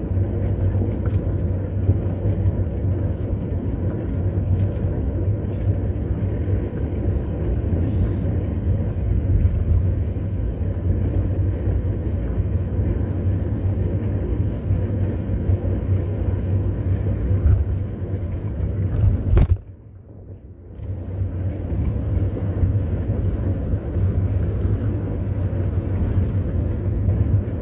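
Steady wind rumble on the microphone from riding a bicycle, heaviest in the low bass. It drops away suddenly for a moment about twenty seconds in, then returns.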